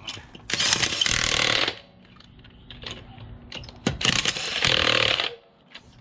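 Cordless impact wrench hammering in two bursts of about a second each, driving a keyed anti-theft lug bolt socket on a wheel. The socket is skipping on the locking lug bolt, so the wrench doesn't seat it. A few light clicks come between the bursts.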